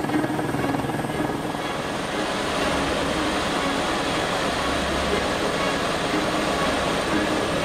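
Helicopter in flight heard from inside the cabin: a steady rapid rotor beat over engine noise.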